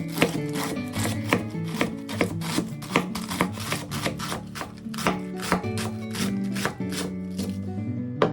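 Background music with a knife chopping on a cutting board, sharp uneven strokes about two to three a second.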